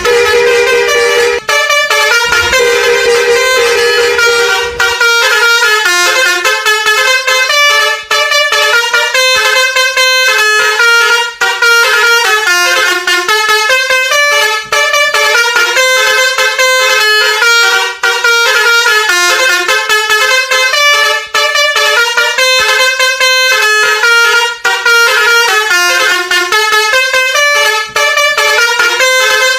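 Basuri V3 musical vehicle horn playing a fast melody of short tones, its phrases broken by brief pauses every few seconds.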